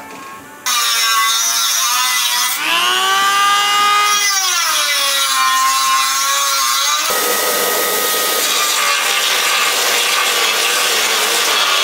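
Dremel rotary tool with a cutoff wheel cutting into a steel car frame, its high whine dipping and recovering in pitch as the wheel bites into the metal. About seven seconds in it changes to a rougher, hissing grind as a grinding bit works the edge of the hole.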